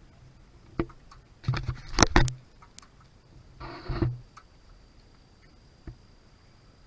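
A few sharp knocks and clatters, loudest in a quick cluster about two seconds in, with a short rustle and another knock near four seconds and a single knock near the end.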